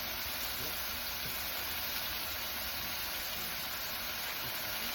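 Food sizzling steadily on a hot flat-top griddle.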